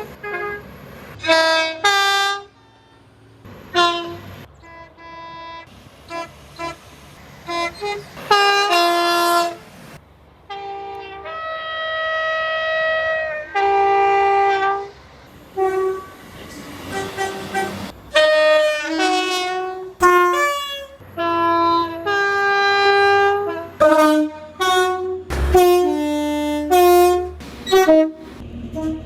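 Train air horns sounding a long series of blasts, each a chord of several tones: mostly short toots with a few held ones a couple of seconds long. The pitch of the chord changes from blast to blast, as from several different horns.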